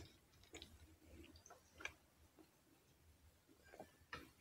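Near silence with a few faint, scattered mouth clicks from quiet chewing. Near the end comes a sip from a glass.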